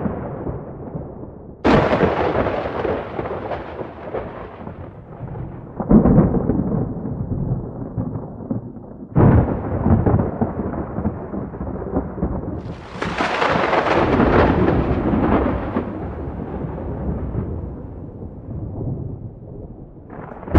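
Wind buffeting the microphone in irregular gusts, each starting suddenly and dying away over a few seconds.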